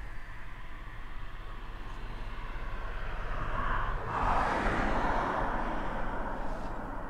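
A car driving past on the road: its noise builds over a few seconds, is loudest about four and a half seconds in, then fades as it moves away.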